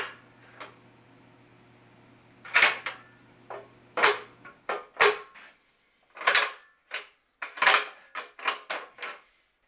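Metal clanks and knocks from the steel quick-attach latch levers and pins on a New Holland TN75DA front loader, worked by hand while its tack-welded temporary repair is tested. The first knock comes about two and a half seconds in, and the knocks come quicker near the end.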